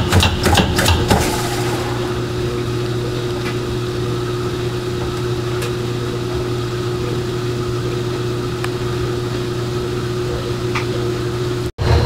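GE washing-machine motor running: repeated knocking, about three a second, for the first second, then a steady hum. The owner traced the loud noise to a failing motor whose internal speed-control actuator was breaking apart, not to the gearbox. It cuts out briefly near the end.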